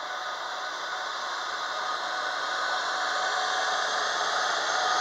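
FS D.445 diesel-electric locomotive pulling away and drawing near, its diesel engine running with a steady whine over the engine noise, growing gradually louder as it comes past.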